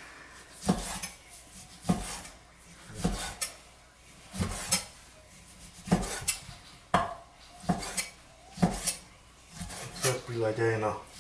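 Broad-bladed kitchen knife slicing raw beef on a wooden cutting board: irregular strokes, each ending in a knock of the blade on the board, about one a second.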